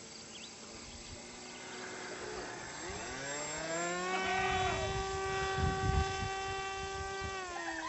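Small brushless electric motor and pusher propeller of an RC plane (95 g Keda 1038 kV motor on a 4S battery) whining: it comes back on after a glide about three seconds in, rising in pitch, holds a steady tone, then drops in pitch near the end. A low rumbling noise sits under it in the middle.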